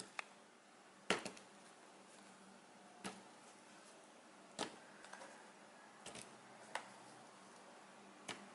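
Light knocks of cut strawberry pieces dropped one at a time into a plastic bowl on a kitchen scale, about seven short taps a second or two apart over faint room hiss, the loudest about a second in.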